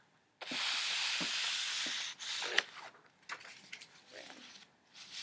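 A paper card being handled and slid off a carpet: a scraping rustle for about a second and a half, then several shorter rustles.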